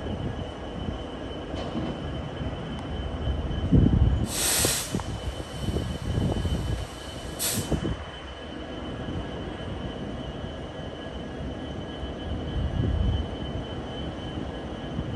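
BNSF EMD GP60 diesel freight locomotives moving slowly with a steady low engine-and-track noise. A high-pitched wheel squeal lasts under a second about four seconds in, with a shorter squeal about three seconds later, along with a few low knocks from the wheels on the rails.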